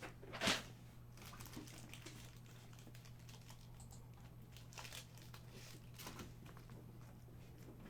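Faint crinkling and rustling of trading cards and their pack wrapper being handled. The loudest rustle comes about half a second in, and softer scratchy strokes follow later.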